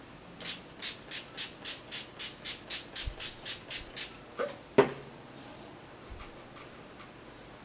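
NYX Dewy Finish Long Last setting spray pump bottle spritzed rapidly, about fifteen short misting hisses at roughly four a second. A sharp tap follows just under five seconds in.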